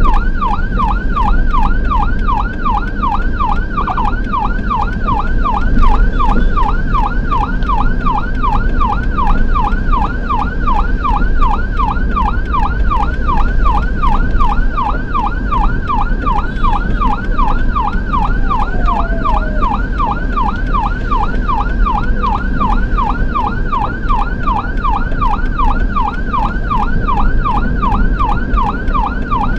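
Ambulance electronic siren in yelp mode, a fast wail rising and falling a few times a second without a break, heard from inside the ambulance cabin over the low rumble of the engine and wet road.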